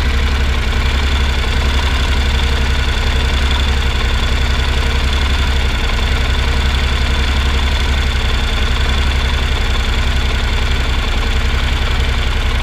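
Warm 2016 Honda NC 750X parallel-twin engine idling steadily, heard up close. Its even mechanical running is the normal sound of this engine: a new owner took it for tapping valves, but the rider holds it to be normal and the same on every NC.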